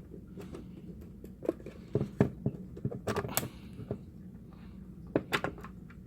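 Irregular clicks, taps and knocks of a plastic multimeter case and its parts being handled, bunched in the middle and again near the end, over a faint steady hum.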